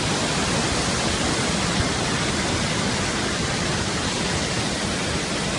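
Floodwater rushing in a steady, unbroken flow as a muddy flash flood pours over walls and through yards.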